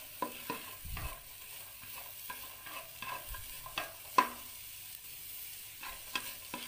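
Spatula stirring and scraping sliced shallots and garlic around a dry nonstick pan, with no oil: irregular taps and scrapes, one sharper knock about four seconds in.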